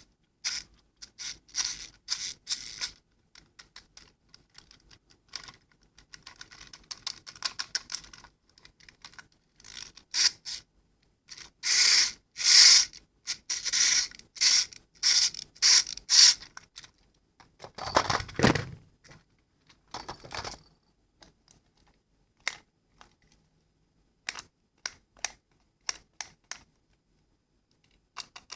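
Close-up handling of small toys or candy: irregular clicks, taps and rustles in uneven clusters, with one longer, duller rubbing knock about eighteen seconds in.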